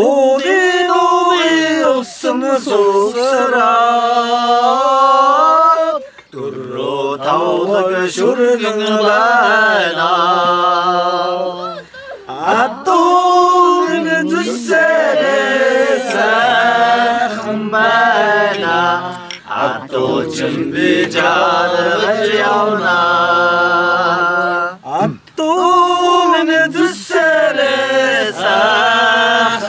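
Men singing a Mongolian song unaccompanied, in long held lines that bend and slide in pitch, with short pauses for breath between lines.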